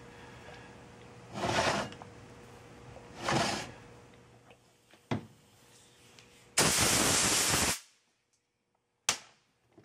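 Two short squirts from a plastic squeeze bottle as acetone is put into the ring gear's bolt holes, followed by a sharp knock. Then comes a loud burst of steady hiss about a second long that starts and stops abruptly.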